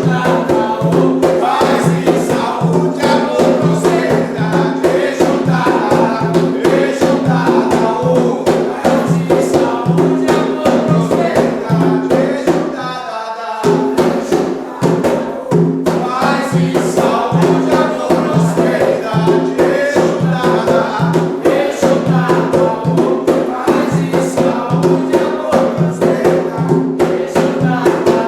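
Group of voices singing an Umbanda ponto to Exu over drums beating a steady rhythm. The low notes drop out for a moment about halfway through.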